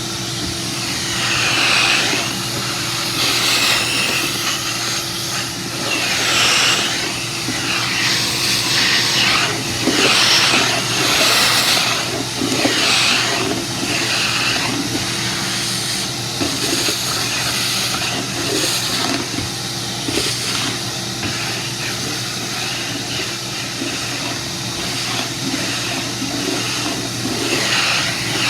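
Ridgid WD1270 12-gallon wet/dry shop vac running steadily while vacuuming a floor, a steady hum under a rush of air that swells and fades every second or two.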